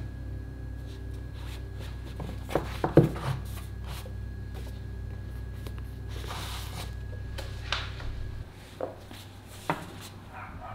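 Quiet room tone with a steady low hum, broken by a few light knocks and clicks of objects being handled; the loudest cluster comes about three seconds in, with a short rustle a little later. The hum drops away about eight seconds in.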